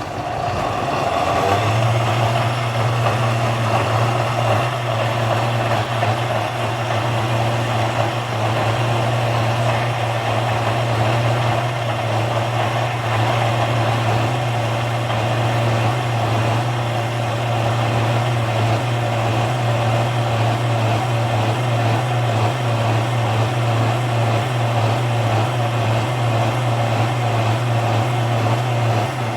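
Electric blender running steadily, grinding fresh pepper, spring onion, tomatoes and water into a purée. It is switched on at the start and settles to a steady hum within about two seconds.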